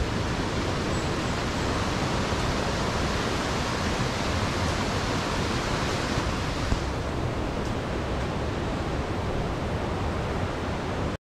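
Steady rushing of a mountain valley stream, an even wash of water noise that cuts off suddenly near the end.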